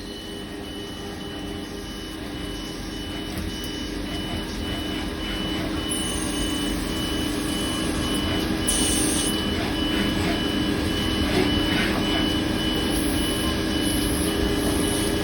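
CNC machine running while machining a POM plastic part: a steady mechanical hum with a high tone pulsing on and off evenly, growing louder over the first half.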